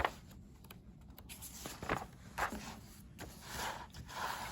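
Several soft, short rustles and a few light clicks of handling noise in a quiet small room.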